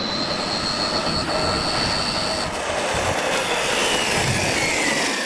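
Losi LMT electric RC monster truck on a 3S battery, its brushless motor whining at speed over tyre noise on pavement. The high whine holds steady for about two seconds, breaks off, and later falls in pitch as the truck slows.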